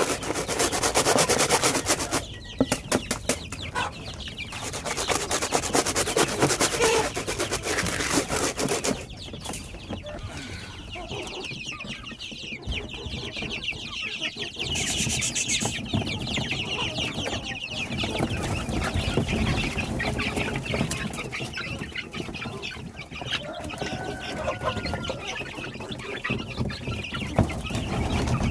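Domestic chickens clucking. For the first nine seconds or so, loud, rapid scraping and rubbing, with a short pause after about two seconds, partly covers the clucking.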